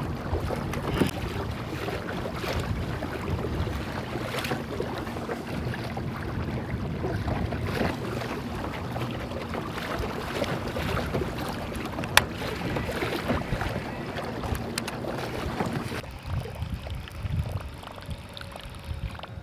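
Water splashing and lapping against a fishing kayak as it moves along while trolling, with wind buffeting the microphone. A single sharp click about twelve seconds in, and the water noise drops off for the last few seconds.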